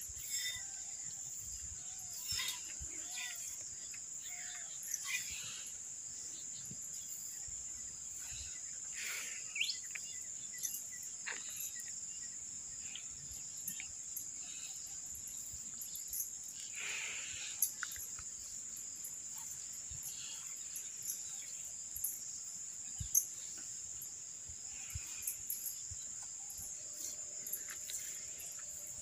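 Insects chirring in a steady high-pitched drone, with scattered faint taps and brief rustles over it.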